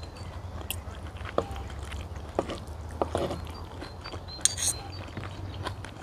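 Close-up chewing of a mouthful of food, with a spoon and fork clinking and scraping on a plate several times.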